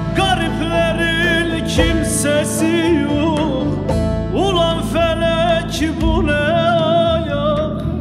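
A man singing a Turkish folk song (türkü) to his own bağlama, the voice sliding and ornamented over the saz's ringing strings, with a few strong strummed accents.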